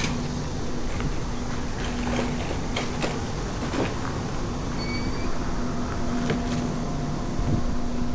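Street traffic noise with a motor vehicle's engine running close by, a steady low hum that comes and goes, amid scattered clicks and knocks.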